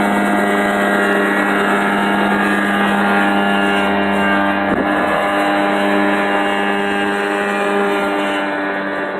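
Mosquito ultralight helicopter in flight, its Rotax 503 two-stroke twin engine and rotor heard from the ground as a steady engine note that fades slightly near the end as it flies off.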